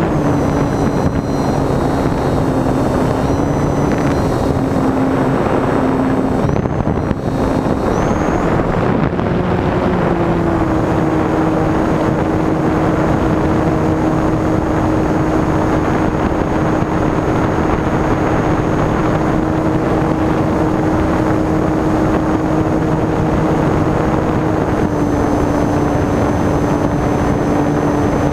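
Electric motor and propeller of an E-flite Timber RC plane running under power, heard from an onboard camera as a steady whine over wind rush. The pitch wavers during the first several seconds, rises about ten seconds in as the plane climbs, then holds steady and drops slightly near the end.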